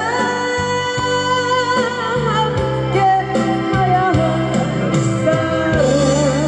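A woman singing a Korean pop ballad into a handheld microphone, holding long notes over a recorded backing track played through a PA.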